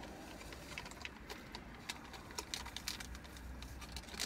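Pre-workout powder shaken from a single-serve packet into a plastic shaker cup: a run of faint, irregular small ticks and taps, thickest in the middle, over a low steady hum.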